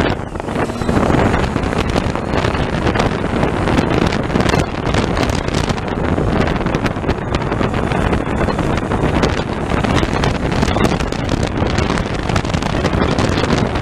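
Wind buffeting the microphone of a camera on a moving motorcycle at road speed, a loud, steady rush with constant gusts, with the motorcycle's engine and tyre noise underneath.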